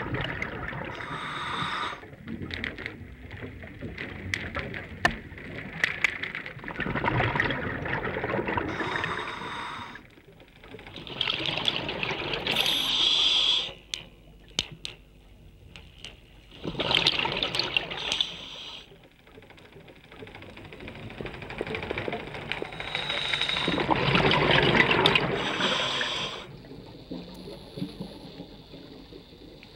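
Underwater bubbling and water noise that swells and fades in irregular surges every few seconds.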